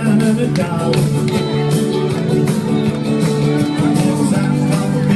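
Rock-and-roll dance music with guitar and a steady beat.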